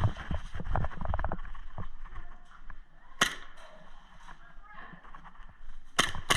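Airsoft guns firing: one sharp snap about three seconds in and two more in quick succession near the end, after a run of dull low thumps in the first second and a half.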